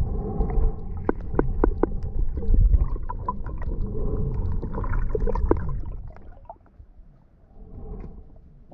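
Underwater sound through a submerged camera: a muffled low rumble of water moving around the housing, with many short sharp clicks scattered through it, dying down about six seconds in.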